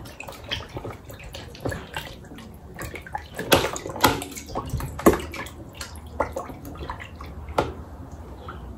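Hands washing pieces of catfish in a plastic bowl of water in a steel sink, rubbing them with salt to strip off the slime. Water sloshes, with sharp, irregular splashes and knocks every second or so, the loudest about halfway through.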